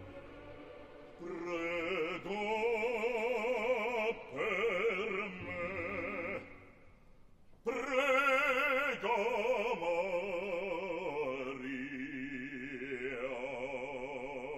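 Male operatic voice singing with wide vibrato in two long phrases, broken by a short pause near the middle.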